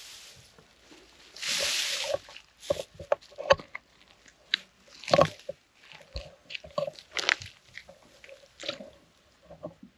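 Squelching and splashing in shallow muddy water: a short splash about a second and a half in, then an irregular run of wet smacks and squelches.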